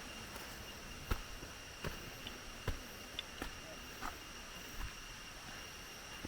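Footsteps on a jungle trail, a knock or crunch about every three quarters of a second, over a steady high drone of insects.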